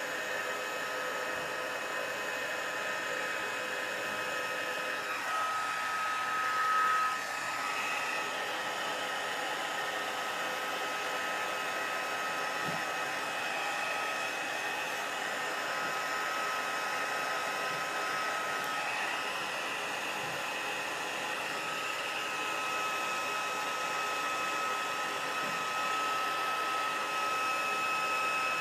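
Embossing heat gun running steadily, its fan blowing hot air to melt embossing powder on embossed cardstock. A steady whine rides over the rush of air, briefly louder about six seconds in.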